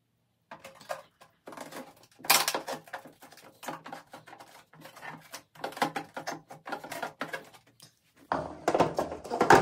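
Plastic wall-mounted toothbrush holder and toothpaste dispenser being handled and pressed flat against a wall: a string of knocks, taps and rubbing. The loudest knock comes about two seconds in, and a louder cluster comes near the end.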